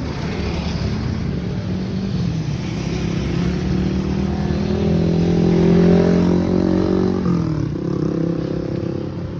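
A motor vehicle passes close by on the road. Its engine grows louder to a peak about six seconds in, then drops in pitch as it goes past and fades.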